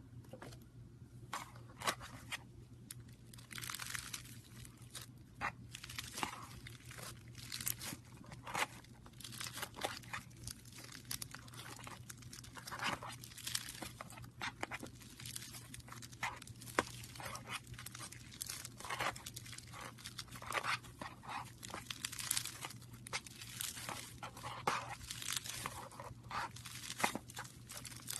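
Slime being worked by hand, giving a dense, irregular run of crackling clicks and pops.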